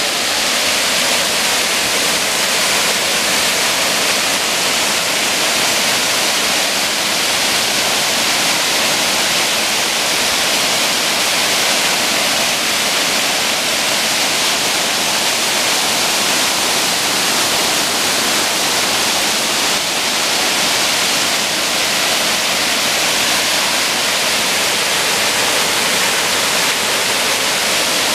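Waterfall crashing: a loud, steady rush of falling water that does not change.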